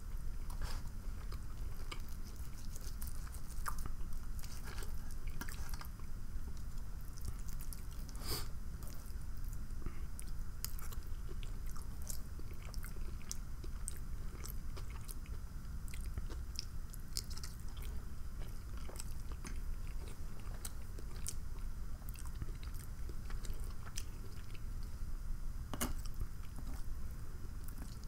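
Close-miked chewing of a person eating, with many small irregular clicks and smacks from the mouth over a steady low hum.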